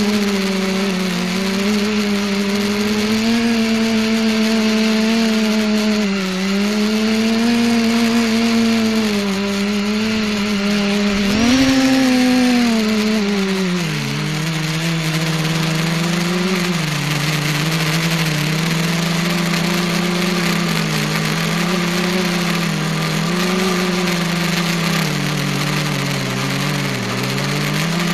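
Electric multicopter motors and propellers running close to the onboard keychain camera, a steady whir whose pitch rises and falls with the throttle. About twelve seconds in it briefly climbs higher, then settles lower.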